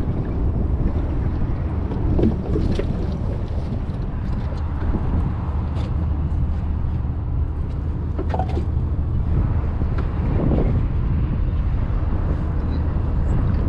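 Steady low rumble of wind on the microphone aboard a small boat on open water, with a few faint clicks.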